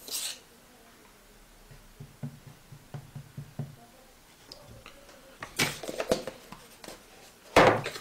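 Handling of the aluminium electric moka pot's metal parts: a brief brushing sound at the start, a few soft knocks, then sharp metallic clicks and one loud knock near the end as the parts are set down and fitted.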